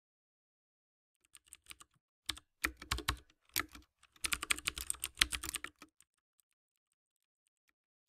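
Typing on a computer keyboard: a run of quick key clicks starting about a second in, a few scattered strokes and then a fast, dense flurry, stopping about six seconds in.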